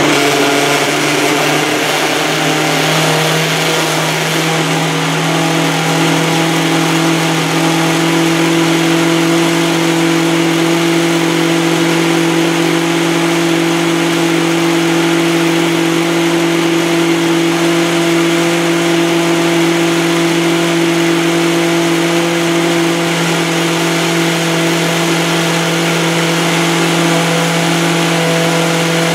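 Nutri Ninja personal blender's motor running at full speed, a loud, steady whir at an unchanging pitch, as it blends whole fruit (grapefruit, apple, grapes, blackberries) into juice.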